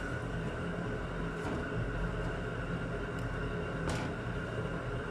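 Steady low mechanical hum, with two light knocks about a second and a half in and near four seconds, from a rolling pin working paratha dough on a wooden board.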